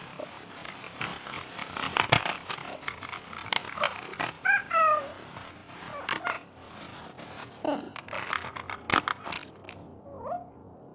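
Plastic toy packaging crinkling and clicking as it is handled, with a few short high squeaky calls about four and a half seconds in.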